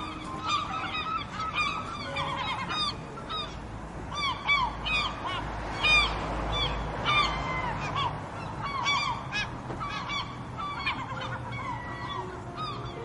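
A flock of birds calling, many short arched calls overlapping, several a second.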